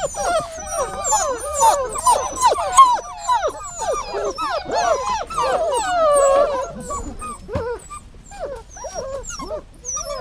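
Dog whining and whimpering: a quick run of high, wavering cries that rise and fall, busiest over the first six seconds and thinning out after that.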